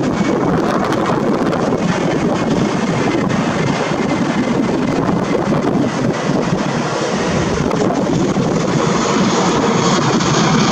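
Steady rushing noise of wind buffeting the camera microphone, mixed with the wash of surf.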